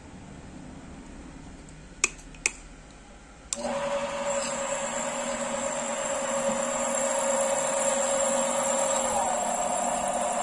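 Two sharp clicks, then the 250 W motor of an MJ9512B variable-speed mini lathe starts suddenly and runs with a steady whine. Near the end its pitch steps up as the speed is raised.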